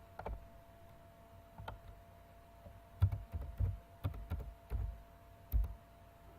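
Typing on a computer keyboard while writing code. A couple of single key presses, then a quick irregular run of keystrokes from about three seconds in, over a faint steady hum.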